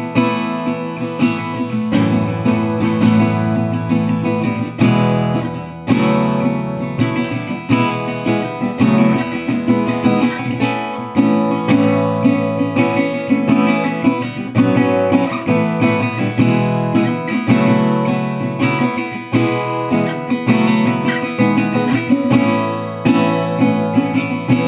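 2009 National Reso-Phonic Style O resonator guitar, with a nickel-plated brass body and a metal resonator cone, played as a continuous run of plucked notes and chords.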